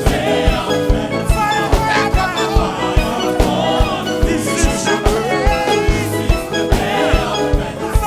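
Upbeat live praise-band music with a fast, steady drum beat, sustained keyboard notes and voices singing along.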